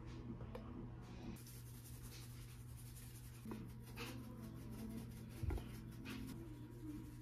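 Faint scratching and light knocks of kitchen handling, with one soft thump about five and a half seconds in, over a low steady hum.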